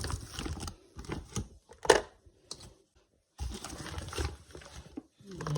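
Irregular rustling, crinkling and small clicks and taps, with a short pause about halfway through.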